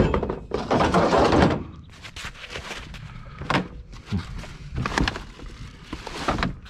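Curbside junk being handled and loaded: a loud knock at the start, a stretch of rustling and scraping about a second in, then a few separate thuds and knocks.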